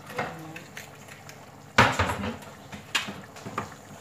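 Kitchen utensils and pots clattering: four sharp clinks and knocks, the loudest about two seconds in, over a low steady background.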